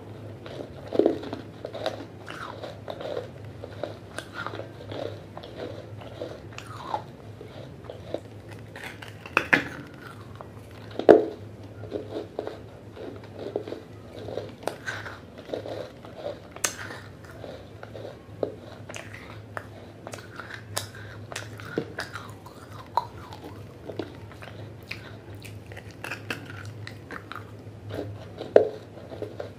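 Biting and chewing a wet, unglazed terracotta clay pot: irregular gritty crunches as the clay is chewed, with a few louder snaps as pieces break off the rim, the loudest about eleven seconds in.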